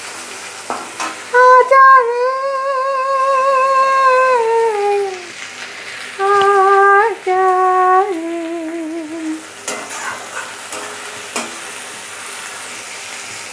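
Onions sizzling in hot oil in a wok, with a spatula scraping and clicking against the pan. Over it a woman sings two long phrases of held, wavering notes, stopping a little past the middle, after which only the sizzling and stirring remain.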